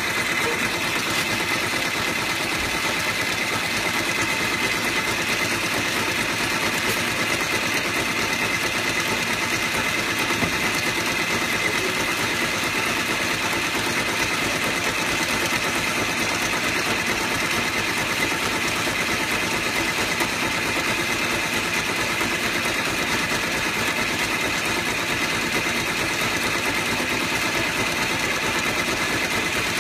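Multi-needle embroidery machine running steadily at a fast stitch rate, its needle bar hammering through black vinyl appliqué on a terry towel with an even mechanical chatter and a steady whine.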